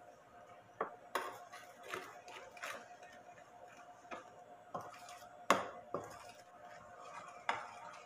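Light clicks and taps of a plastic measuring cup knocking against a glass flour jar and glass bowl as flour is scooped and poured, scattered and irregular, the sharpest about five and a half seconds in.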